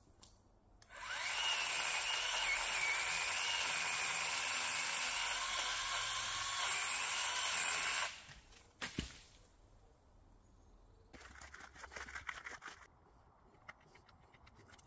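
Parkside PGHSA 20-Li A1 battery pole saw running for about seven seconds with a steady whine that wavers slightly in pitch, then stopping abruptly. A sharp knock follows, and a couple of seconds later a short run of rapid crackling clatter.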